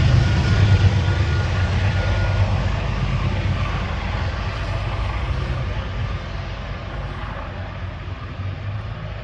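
Diesel train engine running with a deep rumble that steadily fades as the train moves away.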